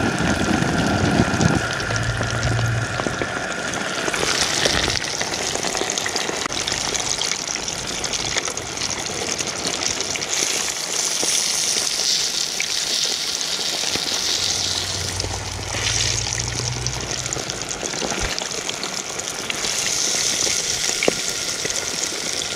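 White perch frying in hot grease: a steady sizzle that swells now and then.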